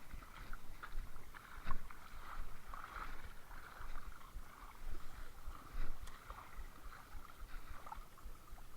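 Shoreline ambience: wind gusting on the microphone over the wash of water.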